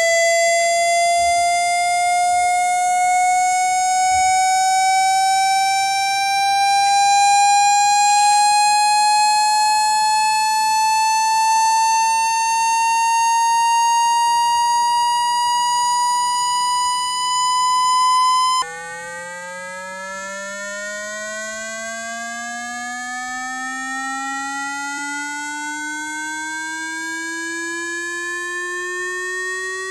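Electronic water-ejection tone for clearing water out of a phone speaker: a buzzy tone rising slowly in pitch, which about two-thirds of the way through cuts to a much lower, quieter tone that again rises slowly.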